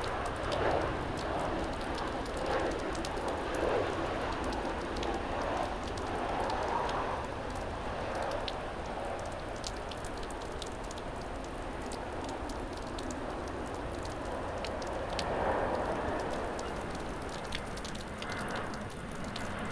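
Heavy rain falling, with many sharp ticks of single raindrops striking a nearby surface over a steady wash of rain noise that swells and eases.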